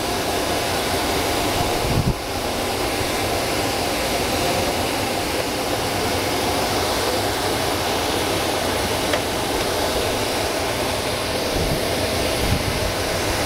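Car wash vacuum station running steadily: a constant rushing of air with a faint hum.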